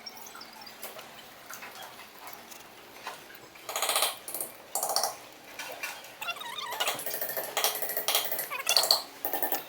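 Impact wrench running in short rattling bursts, driving bolts home. The bursts start about a third of the way in and come thick and fast near the end.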